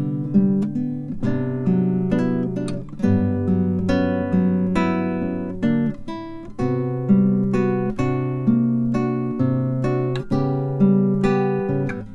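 Acoustic guitar music: plucked and strummed notes over held bass notes, each chord struck and fading about once a second.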